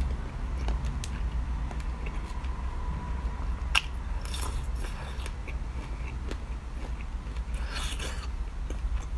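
Close-miked biting and chewing of a chocolate-coated treat. There are crisp cracks of the coating just before four seconds in and again about eight seconds in, with quieter chewing between, over a steady low hum.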